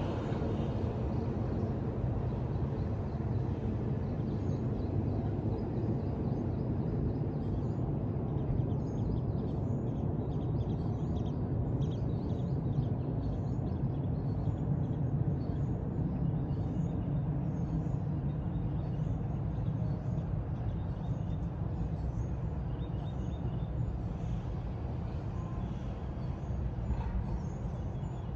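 Disney Skyliner gondola system running: a steady low rumble, with faint, short high-pitched chirps or squeaks coming and going through the middle stretch.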